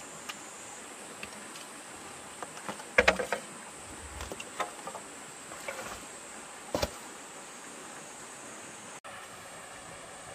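Scattered knocks and clatter of flat stones and a wooden pole being handled and set down. The loudest cluster comes about three seconds in and a single sharp knock near seven seconds. Under them runs a steady high insect buzz.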